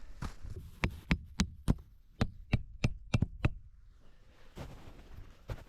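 Rapid series of sharp hammer strikes, about three a second, broken by a pause of about a second near the end: tent stakes being driven in while pitching the tent.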